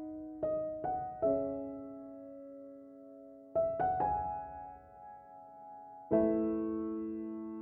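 Slow background piano music: a few soft notes and chords struck in small groups, each left to ring and fade, with a fuller chord near the end.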